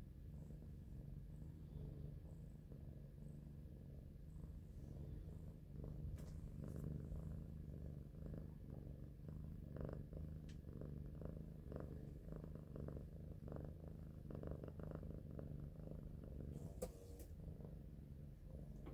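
Domestic cat purring steadily, close to the microphone. From about six seconds in, light scattered clicks and rustles sound over the purr.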